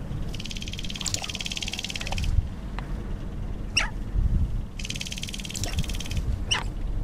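Male sharp-tailed grouse dancing on the lek: the fast rattling drum of his stamping feet and shaken tail feathers, in two bursts of about two seconds and a second and a half, with a short sharp call after each burst.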